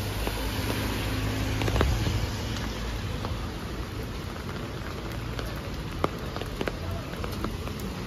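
Steady rain falling on a wet street and pavement, with scattered sharp drop ticks. A low hum sits under it for the first couple of seconds.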